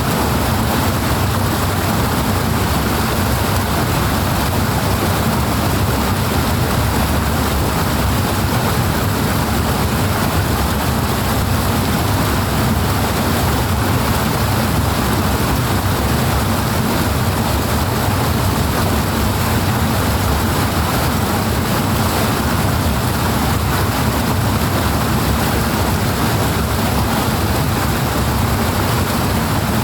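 Loud, steady rush of flowing water, an even, unbroken noise heavy in the low end.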